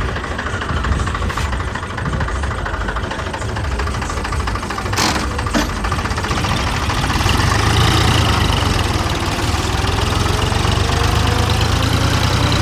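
Engine of corn silage harvesting machinery running steadily under load with a low drone, growing louder about seven seconds in, with a couple of brief clicks around five seconds.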